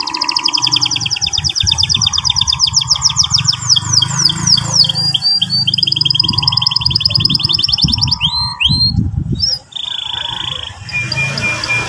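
Domestic canary singing long, fast rolling trills of rapidly repeated notes, changing to short separate notes and a held tone for the last few seconds.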